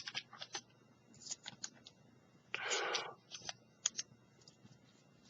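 Scattered light clicks and taps, with a short rustle near the middle, from small lock-pinning kit parts (bags of pins and springs) being handled.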